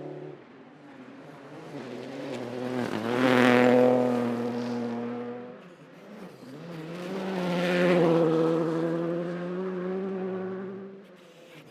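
Rally car engine at high revs, the note swelling loud as it passes, about three and a half seconds in and again around eight seconds, then fading.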